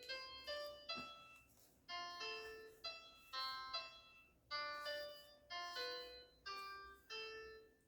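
Keyboard played slowly and unevenly, picking out single notes and small clusters, about two a second. Each note is struck and left to die away, with no steady beat or melody.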